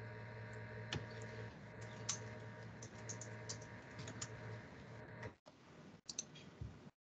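Faint, irregular clicking at a computer over a low steady hum, picked up through a video-call microphone. The call audio drops out briefly twice about five and six seconds in, then cuts to silence near the end.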